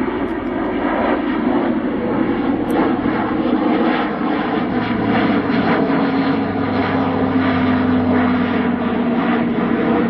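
Airbus A400M Atlas flying past, its four TP400 turboprops with eight-bladed propellers making a loud, steady hum over a deeper drone. The hum's pitch sinks slightly over the last few seconds.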